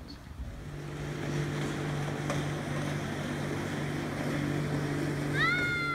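Pontoon boat's motor running steadily as it cruises past on the lake, a low even hum over wind and water noise. A short rising whistle-like call sounds near the end.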